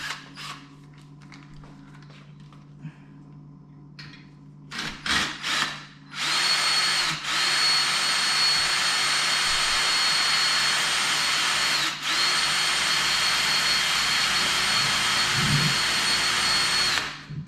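Power drill running at steady full speed, drilling into the head of a stripped screw to break it off, after a few light handling knocks. The steady high whine lasts about eleven seconds, with two brief dips where the trigger eases off.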